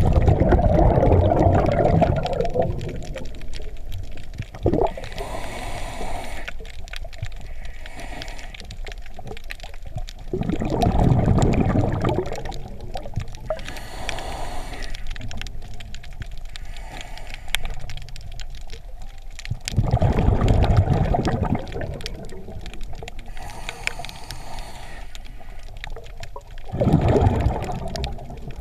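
Scuba diver breathing through a regulator underwater: a soft hiss on each in-breath, then a louder, longer burst of rumbling, gurgling exhaust bubbles on the out-breath. The cycle repeats about every nine seconds, with four bubble bursts in all.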